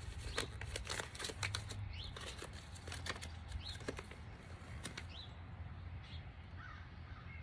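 Irregular clicks and rattles of a mini rotary tool kit being handled, dense for about five seconds and then sparser. Small birds chirp faintly over a low steady hum.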